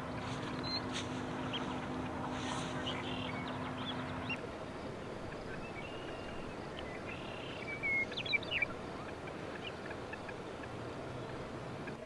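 Open wetland ambience: a steady background hiss with scattered short bird calls, and a quick cluster of sharp calls about eight seconds in. A steady low hum runs under the first four seconds and then stops.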